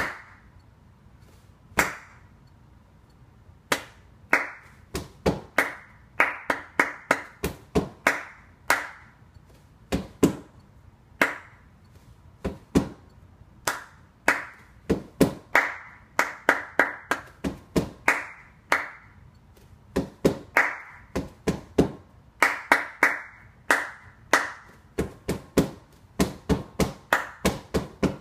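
Rhythmic hand clapping in a syncopated pattern, the top line of a body-percussion piece. Single claps about two seconds apart at first, then quick groups of several claps.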